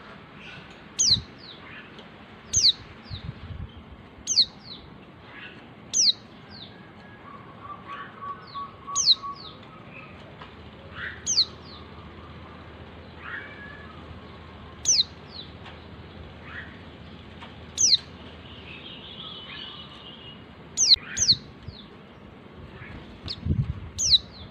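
Female white-eye (pleci) giving its contact call to males: short, high, sharply falling notes repeated every second or two, sometimes doubled, with fainter chirps from other birds between them.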